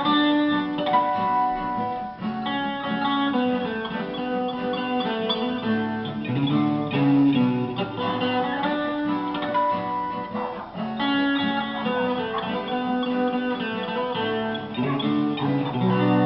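Instrumental music led by plucked guitar, playing the song's closing passage after the vocals end.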